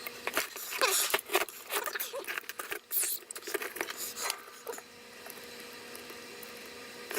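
Hands working with tools and parts on a power-supply circuit board: a run of small clicks, taps and scrapes for the first four seconds or so, then quieter, over a faint steady hum.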